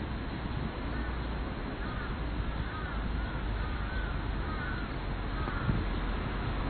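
A crow cawing in a series of short calls, about two a second for roughly four seconds, over a steady outdoor background hiss.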